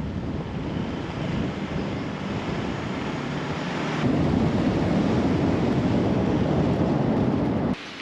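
Wind buffeting the microphone: a steady rushing noise that gets louder about four seconds in and cuts off abruptly near the end.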